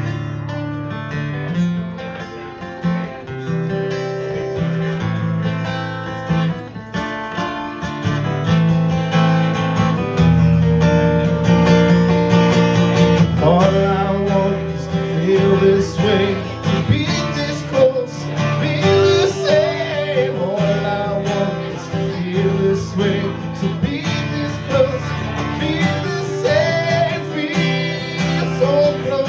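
Steel-string acoustic guitar strummed through a slow song, with a man's voice singing over it in the second half.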